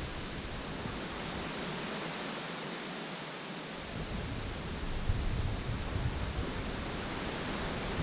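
Steady hiss of wind in the trees, with a low rumble of wind on the microphone that drops away for a couple of seconds and then returns.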